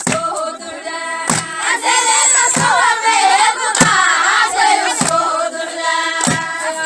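Group of women singing baraanbur, the Somali women's sung poetry, in chorus, with a sharp beat struck about every second and a quarter.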